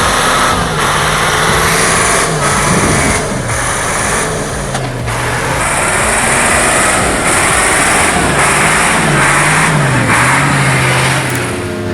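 Ecolog 574F forestry harvester's engine running hard under load, its pitch rising and falling several times, over loud mechanical noise and a high whine.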